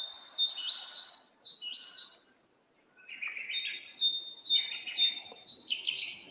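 Forest birdsong sound effect playing back: many birds chirping and tweeting in short high whistled notes, with a brief gap about two and a half seconds in.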